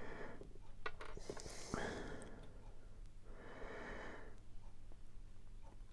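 A person breathing close to the microphone, three slow breaths, with a few small plastic clicks about a second in as Playmobil figure parts are handled.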